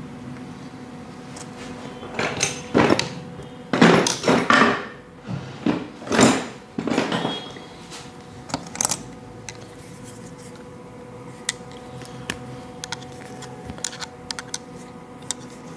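Hand tools, pliers and a screwdriver, clicking and scraping on the plastic switch and wires of an electric kettle whose burnt switch terminal is being cut out and bridged. A cluster of louder scraping and handling comes a few seconds in, then scattered sharp clicks, over a faint steady hum.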